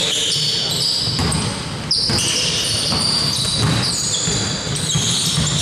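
Basketball play on an indoor court: the ball bouncing on the floor with dull thuds, mixed with many short high squeaks typical of sneakers on the court.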